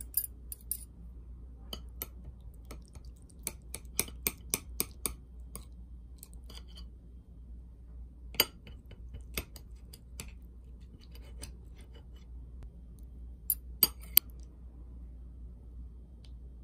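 Metal chopsticks clicking together and tapping a ceramic plate and sauce dish while breaking apart and picking up pieces of tofu: scattered sharp clicks, a quick run of about four a second early on, and a few louder clinks later.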